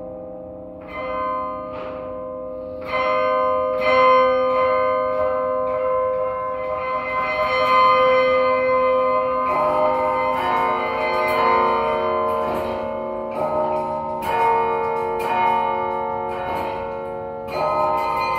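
The 54-bell Yale Memorial Carillon being played: bronze bells struck from the baton keyboard, each note ringing on and overlapping the next. A few spaced strikes come first, then the playing grows busier and louder with chords from about halfway.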